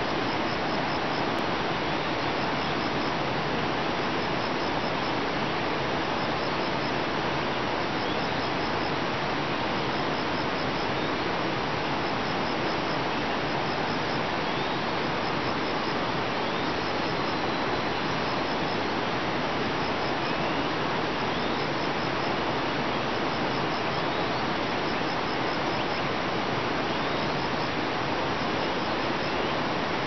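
Steady, even rushing hiss of outdoor nature ambience, with faint short runs of high ticks every second or two and a few faint short rising chirps from small creatures, an insect or bird.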